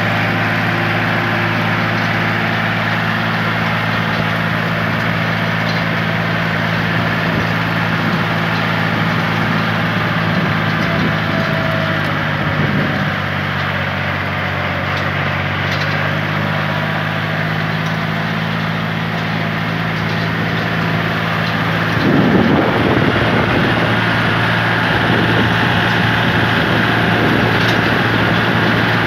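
Steady engine drone with wind and road rush from vehicles on the move: a Kubota tractor driving on a dirt road, heard from a vehicle keeping pace beside it. The rushing swells louder about 22 seconds in.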